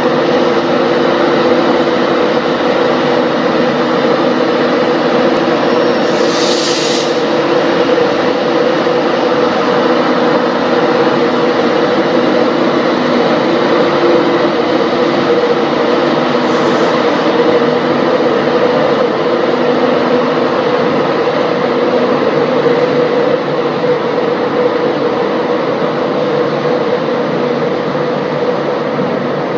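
Class 91 electric locomotive 91107 running as it pulls its train slowly away: a loud, steady electric drone with several held tones over a broad hum. Two brief hisses come about a third and just over half way through, and the drone eases a little near the end.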